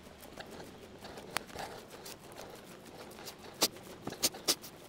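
Footsteps through long rough grass: irregular sharp clicks and rustles, with several coming close together near the end.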